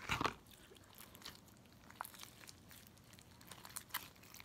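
Hands squishing and stretching a runny clear glue slime: a short squelch right at the start, then faint, scattered sticky clicks and pops.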